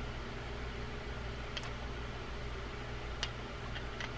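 A few faint, sharp clicks of small metal reel parts as the rotor of a Daiwa BG10 spinning reel is handled and seated onto the reel body, over a steady low background hum.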